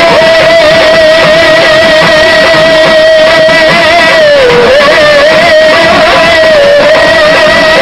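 Loud live dance music: one long melody note is held with a slight waver, dipping in pitch about halfway through, over dense accompaniment.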